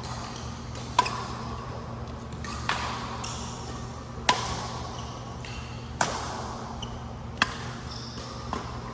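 Badminton rally: a racket strikes the shuttlecock about six times, roughly once every second and a half, each hit a sharp crack with a short ring in the hall, with brief high squeaks between the hits.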